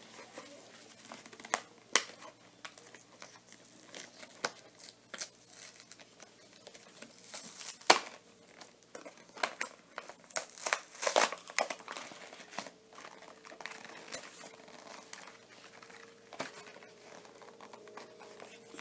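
Plastic blister-and-card toy packaging crinkling and crackling in a child's hands as she works at opening it, in irregular sharp crackles. The loudest come about eight seconds in and again around eleven seconds.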